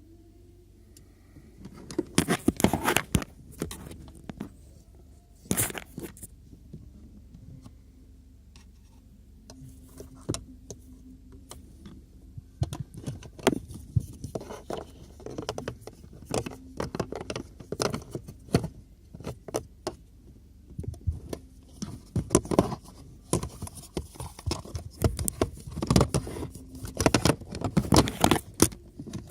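Irregular clicks, knocks and scrapes of plastic interior trim and the cabin air filter housing under a Peugeot 3008's glovebox being unclipped and handled. The sharp clicks come in several dense clusters, over a faint steady hum.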